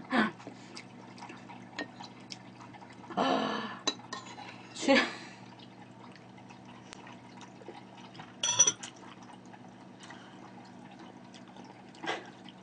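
A few short eating sounds over a low steady hum: a metal spoon against a ceramic bowl and sipping of soup broth.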